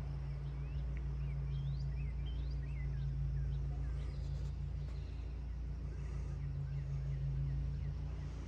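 Small birds chirping in quick short notes over a steady low hum.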